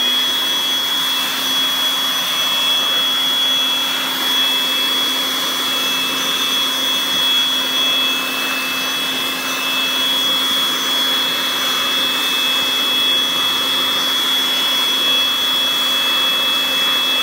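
Handheld electric blower running steadily, blowing dust and chips off carved root wood: a rush of air with a steady high whine from the motor.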